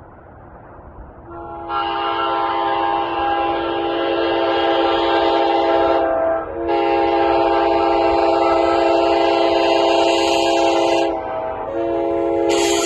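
Nathan K5HA five-chime train horn, a 90s-era tagless parts horn, sounding a steady chord in long blasts of about four seconds each. The blasts are separated by short breaks, after a fainter chord at the start.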